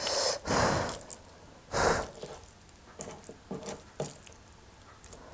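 Fingers mixing rice with gravy on a metal plate: wet, sticky squishing and small clicks, with two brief louder rustles in the first two seconds.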